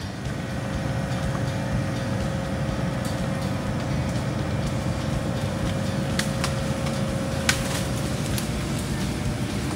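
John Deere excavator's diesel engine running steadily, with a faint steady whine on one pitch over it. A few short, sharp snaps come in the second half.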